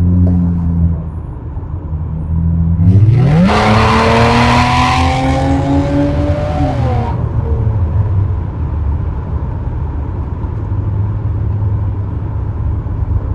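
Lexus V6 engine and exhaust under a full-throttle pull: a steady cruising note, then about three seconds in the revs jump and climb loudly for about four seconds. The revs drop off after that and the engine settles back to steady cruising.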